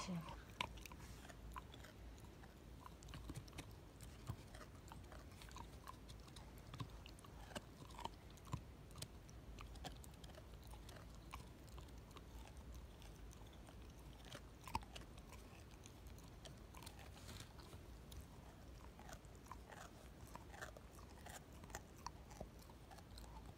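A corgi chewing on a chew stick: irregular soft crunches and clicks of teeth, with a few louder bites scattered through.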